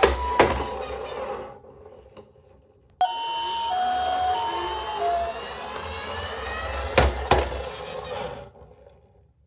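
Toy ambulance minicar's electronic two-tone siren sounding, alternating between a high and a low note, over a low rolling rumble with a few sharp knocks. The siren stops about a second and a half in, starts again suddenly about three seconds in, and fades out near the end.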